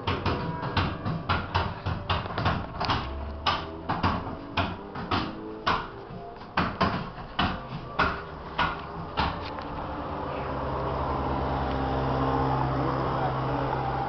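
Church bells struck in a fast, irregular clamour, two or three strikes a second, each leaving a ringing tone; the ringing stops about ten seconds in. After that comes a steady hum of passing road traffic.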